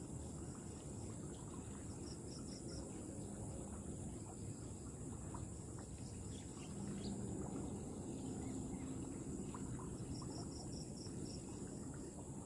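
Steady high-pitched insect chorus, like crickets, over a faint low rumble, with two short runs of four or five quick chirps, one about two seconds in and one near the end.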